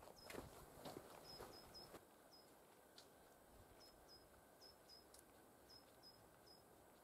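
Footsteps crunching in snow, fading over the first two seconds as the walker moves away, then near silence with faint, short, high chirps now and then.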